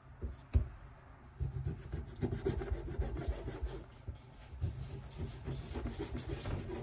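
Two light knocks in the first second, then quick, repeated rubbing and scraping strokes against a hard surface.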